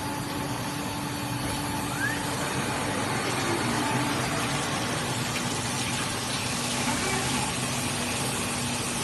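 CNC glass drilling and milling machine running, a steady rushing noise of water coolant mixed with a low machine hum.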